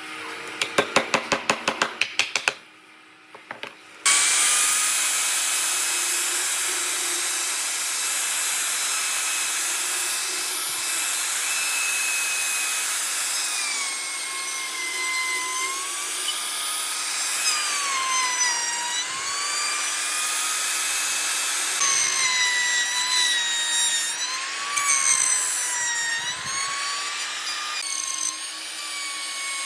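A quick run of about a dozen sharp taps, then a pause. About four seconds in, an electric power tool starts and runs steadily on wood, its whine dipping in pitch again and again as it bites into the cut.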